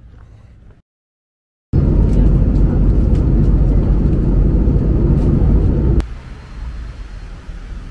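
After a brief silence, the loud, steady rumble and rush of a jet airliner's cabin in flight, heard from a window seat beside the underwing engine. After about four seconds it cuts off suddenly to a quieter, steady outdoor background noise.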